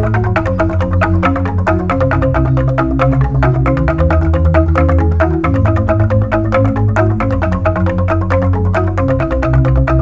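Balinese jegog: an ensemble of bamboo-tube marimbas struck with mallets, playing fast interlocking strokes over deep sustained bass tones.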